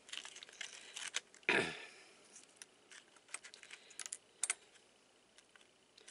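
Faint scattered clicks and light rustles of a silicone spatula and fingers moving taco meat and broken tortilla chips on a paper plate, with one brief louder sound about a second and a half in.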